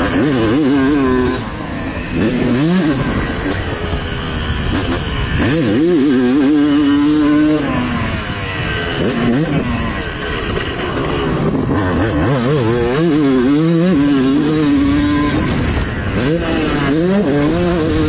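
Yamaha YZ two-stroke motocross bike ridden flat out from on board, its engine revving hard: the pitch climbs and drops again and again as the rider twists the throttle and shifts through the corners and straights, holding high revs for a couple of seconds at a time.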